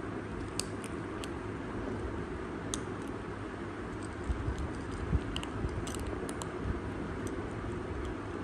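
Two kittens crunching dry kibble from ceramic bowls: scattered short, sharp crunches and clicks, irregular and bunched around the middle, over a steady low background noise.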